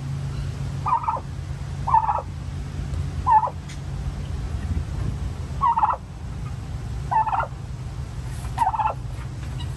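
A tom turkey gobbling repeatedly: six short gobbles spaced about a second to two and a half seconds apart.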